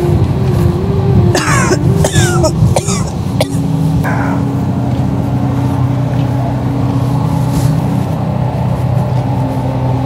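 A person coughing several times in the first few seconds, over a steady motor hum.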